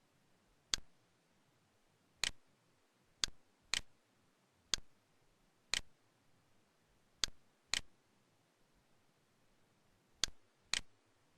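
Computer mouse clicks: ten sharp, single clicks at uneven intervals, several in pairs about half a second apart.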